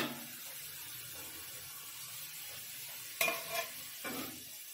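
Sarson ka saag (mustard greens) sizzling in the pot with a steady hiss, starting with a sharp clink. A spoon stirs and scrapes the pot a few times about three seconds in.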